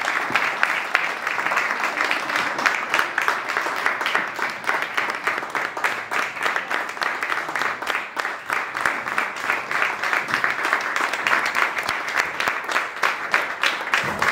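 Audience applause: many people clapping together in a dense, steady patter of hand claps.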